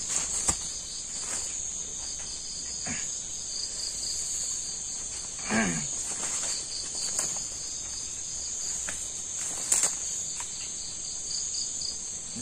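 Night insects: crickets chirping in a fast, even pulse over a steady high-pitched insect drone. A couple of sharp clicks stand out, one near the start and one toward the end, and a short voice sound falling in pitch comes about halfway.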